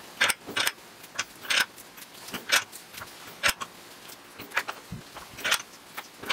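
Short metallic clinks and scrapes of steel on steel, irregular at about two a second, from a steel rod worked against a hex-ended steel part clamped in a bench vise.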